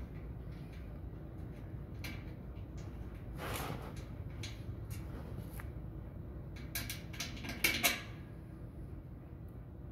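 Metal infrared-sensor bracket on a carpet cutting machine being swung down and handled: a brushing rustle about three and a half seconds in, then a few sharp knocks near the end, the two loudest close together. A steady low hum runs underneath.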